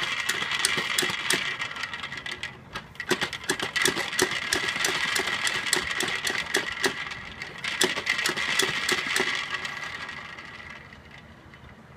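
Push-down spinning-top toy being pumped by hand: rapid clicking and rattling of the plunger and the spinning dome with a steady high whir, dipping briefly about two and a half seconds in and fading out about ten seconds in.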